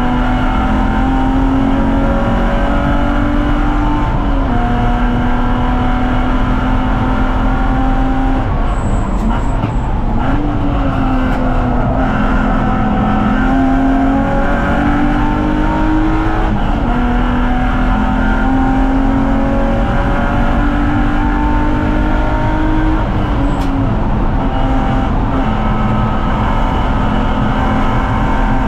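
BMW 330Ci's straight-six engine running hard on track, its pitch climbing slowly through each gear and dropping sharply at several gear changes, with a brief lift and swell about ten seconds in.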